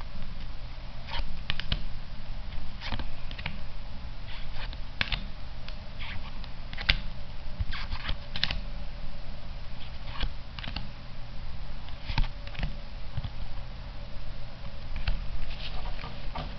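Weiss Schwarz trading cards from a freshly opened booster pack being leafed through one at a time: irregular light snaps and swishes of card sliding on card.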